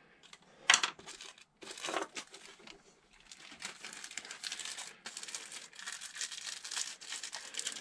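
Plastic packaging crinkling and rustling while a small new fork top-nut seal is taken out, with a sharp click about a second in.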